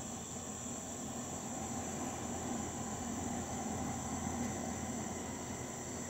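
Steady high-pitched chorus of night insects, unbroken throughout, with a low steady hum underneath.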